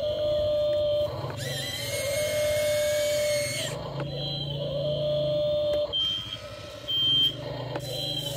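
Electric motors of a Volvo-branded RC toy excavator whining in repeated spells of one to two seconds as the boom, arm and bucket move to dig dirt. The longest spell, about two seconds in, is louder and rises slightly in pitch.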